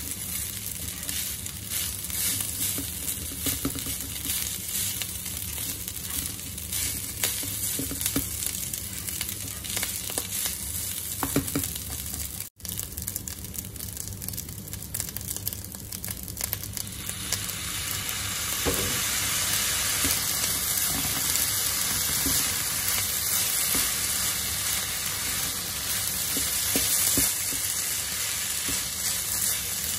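Rice stir-frying in a nonstick pan: a steady sizzle with the scrape and light knocks of a plastic spatula tossing the rice. The sound drops out for a moment about twelve seconds in, and the sizzle grows louder from about seventeen seconds in.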